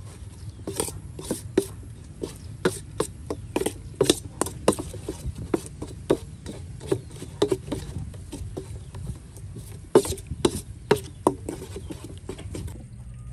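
Metal spoon clinking and scraping against a stainless steel bowl while stirring chili sauce. The strokes are irregular, a few a second, and stop near the end.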